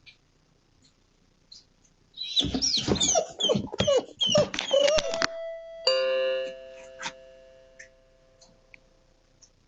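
A doorbell chime rings about six seconds in, its tones fading away over about three seconds. Before it comes a few seconds of busy squeaking and clattering.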